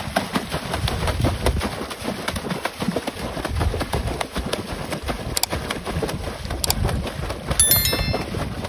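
A dog paddling and splashing hard in river water: a rapid, uneven run of splashes. A short high-pitched chirp comes near the end.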